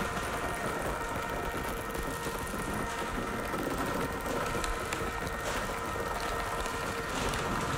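Experimental percussion music: a steady drone of several held tones under a dense crackling, rustling noise from a large sheet of metallic foil being crumpled and shaken.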